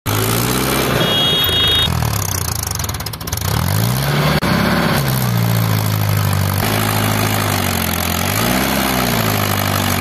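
Mahindra Yuvo 575 DI tractor's diesel engine working hard under heavy load as it drags a laden trailer of stony soil up out of a pit. Its pitch falls and climbs again several times as the load and throttle change, then holds steady.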